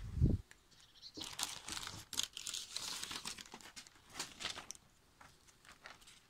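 A short thump at the start, then stiff printed sheets crinkling and rustling as they are handled: a Lego Technic set's sticker sheet and sails. The crinkling fades out about five seconds in.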